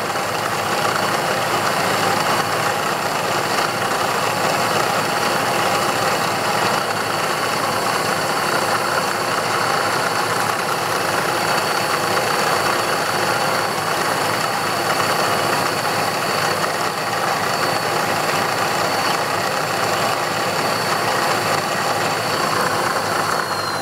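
Milling machine spindle running steadily at high speed while a small twist drill drills holes through a brass washer, with a steady high whine over a constant rushing noise. The whine dips in pitch near the end.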